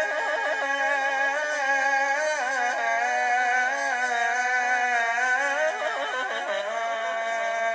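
A male muezzin reciting the adhan (Islamic call to prayer) in the Medina style, one voice singing long melismatic phrases. The pitch winds through ornamented turns in the first few seconds, then settles into a long held note near the end.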